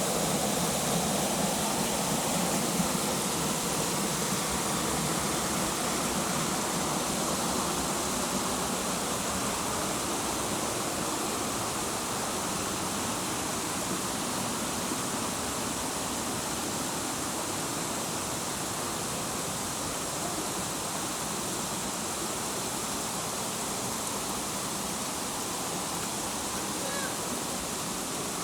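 Steady rushing of falling water from a waterfall, a dense even hiss that slowly grows a little fainter.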